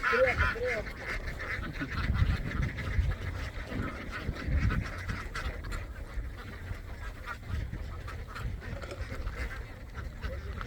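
A large flock of domestic ducks quacking and chattering together in a dense, continuous clatter, with a few louder drawn-out calls near the start. Low rumbling comes and goes around two and again about four to five seconds in.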